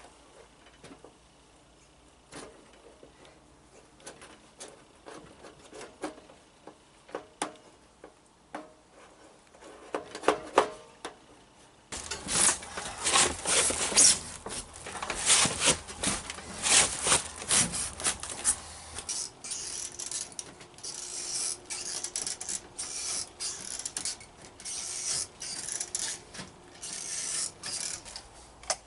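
Scattered clicks and knocks, then after about twelve seconds a long run of rapid rasping, rubbing strokes.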